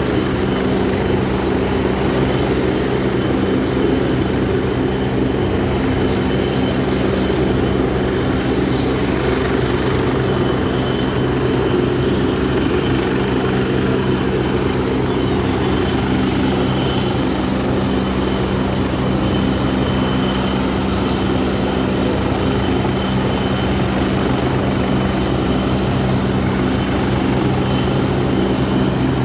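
Helicopter running steadily at close range: a loud, even rotor and engine drone with a thin high whine above it, unchanging throughout.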